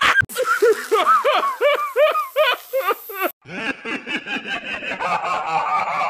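Two cartoon character laugh sound effects, one after the other. The first is a quick string of about a dozen rising-and-falling "ha" syllables, about four a second, that cuts off suddenly just over three seconds in. After a short gap comes a second, denser and raspier laugh.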